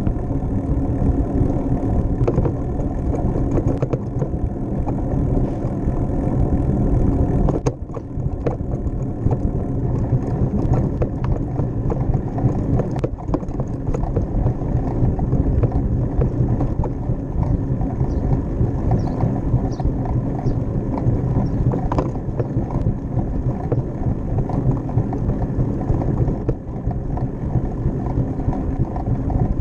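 Steady rumble of wind on the microphone and rolling noise of a moving bicycle, with a faint steady hum and a few sharp clicks from bumps.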